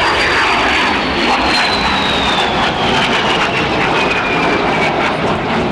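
De Havilland Vampire FB.52's Goblin 3 centrifugal turbojet running loud, a rushing jet noise with a thin high whine that falls steadily in pitch and fades out near the end.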